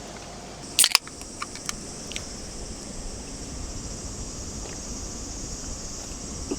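A beer can opened with a sharp double crack about a second in, followed by a few light clicks. Insects chirr steadily and high-pitched in the background.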